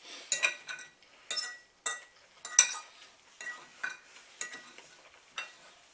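Metal fork clinking and scraping against a dinner plate as food is scooped up: about ten sharp, ringing clinks spread unevenly over several seconds.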